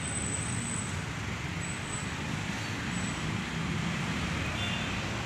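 Road traffic on a town street, with a bus engine running close by as it pulls past. A steady low rumble.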